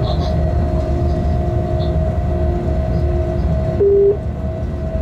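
Freight train cab running: a steady low rumble with a constant hum, and one short loud electronic beep about four seconds in.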